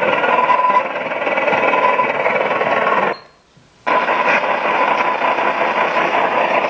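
Medium-wave radio reception noise: a dense, buzzing rattle of static and interference over the weak station signal. It cuts out to near silence for under a second about three seconds in, then returns.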